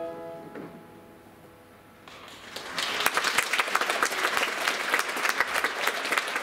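An orchestra's last chord dies away, then a theatre audience breaks into applause about two seconds in, swelling quickly into loud, steady clapping.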